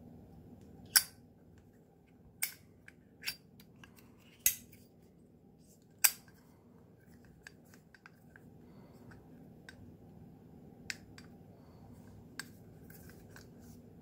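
Zippo windproof lighter's hinged metal lid clicking open and snapping shut: five sharp metallic clicks in the first six seconds, then a few fainter ones.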